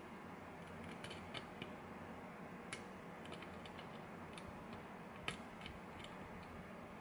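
Faint metallic clicking and scraping of a thin short-hook lock pick working the pins of a GeGe lock under a tension wrench, with a few sharper clicks, the loudest about five seconds in.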